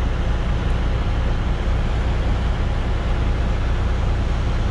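Grain semi truck's diesel engine running, heard from inside the cab as a steady low drone while the truck creeps along.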